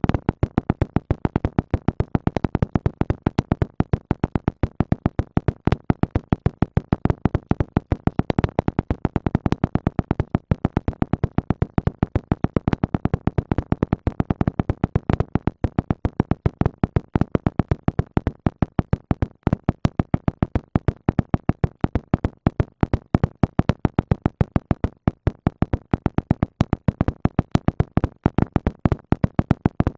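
Background synthesizer music with a fast, even pulse of short, sharp notes.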